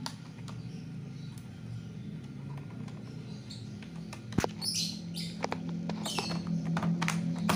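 Laptop battery pack being fitted into its plastic bay: a sharp plastic click about four and a half seconds in, then several short scraping rubs of plastic on plastic as it is slid into place, over a steady low hum.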